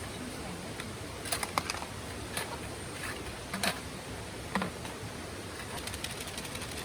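Steady rushing of a mountain stream, with about six sharp clicks or taps scattered through the first two-thirds.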